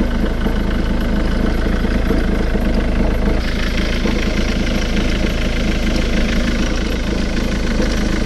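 Ford Mondeo Mk3 2.0 TDCi diesel engine idling steadily, with a slight shift in its sound about three and a half seconds in.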